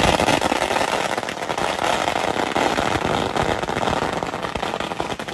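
A string of firecrackers going off in a loud, continuous rapid crackle of small bangs.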